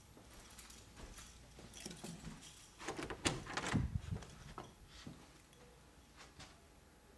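Interior door being moved as someone passes through the doorway: a few soft knocks and clicks, the loudest cluster with dull thuds about three to four seconds in, with lighter handling clicks around them.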